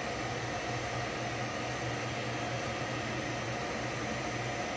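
Steady fan whir and electrical hum of running LS H100 variable frequency drives, with a strong low hum and faint, thin, high-pitched whines.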